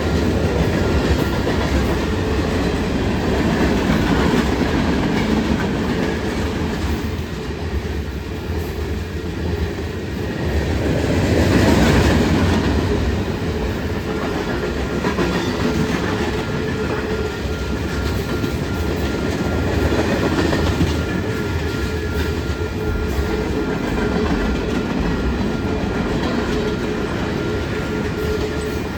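Freight train cars rolling past at a crossing: a steady rumble of wheels on rail with clickety-clack over the joints, swelling louder about twelve seconds in.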